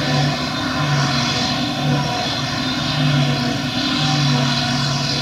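Claas Jaguar 950 self-propelled forage harvester running at work, picking up and chopping a grass windrow. It makes a steady, loud machine drone with a high whine over it, and a low hum that swells and fades unevenly about once or twice a second.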